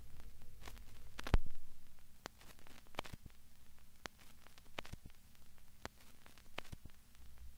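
Irregular clicks and thumps, roughly one every half second to a second, from running footsteps and a jolting handheld camera, over a low steady hum. One louder thump comes about a second in.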